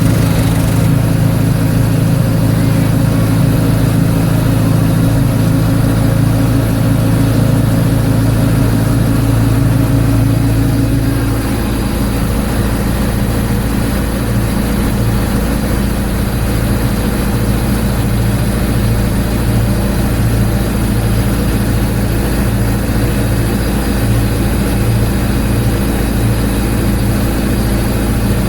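Ford 755B backhoe's diesel engine running loud and steady; about eleven seconds in its note changes and it gets slightly quieter.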